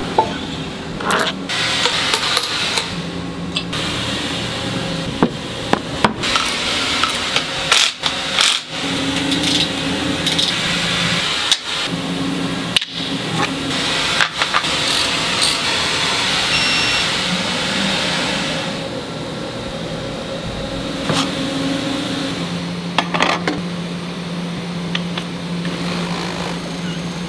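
Workshop handling sounds: metal fixture parts and clamp jaws clicking and clunking as they are set and fastened, over a steady machine hum, with several abrupt cuts.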